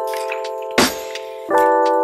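Background music: held keyboard chords that change about one and a half seconds in, punctuated by sharp percussive clicks.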